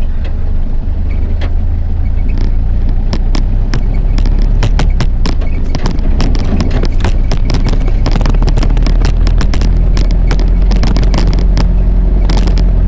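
A vehicle driving over a rough dirt track: a steady low engine and road rumble, with many sharp rattles and knocks from about three seconds in as it jolts over the bumps.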